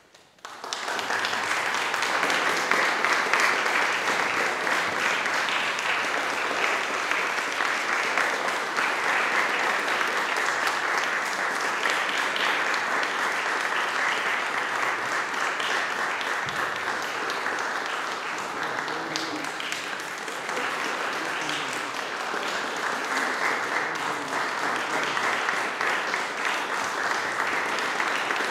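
Audience applauding. The clapping breaks out suddenly from silence about half a second in and then carries on steadily.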